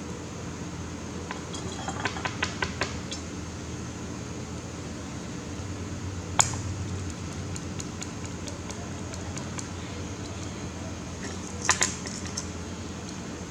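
Small hard objects clicking and clinking over a steady low hum: a quick run of light taps about two seconds in, one sharp click midway, and a close pair of clicks near the end.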